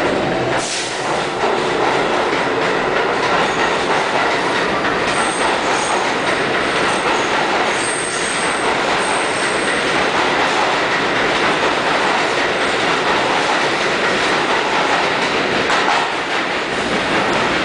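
New York City Subway train of R62-family cars running along the station platform, a steady loud rumble and clatter of wheels on rail, with a thin high wheel squeal coming and going about five to nine seconds in.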